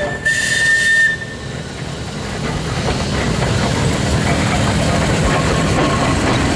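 Manx Electric Railway winter saloon tram car 19 and its trailer moving off and running close past, a steady rolling noise of motors and wheels on the rails that grows louder. Near the start a high whistle toots for about a second.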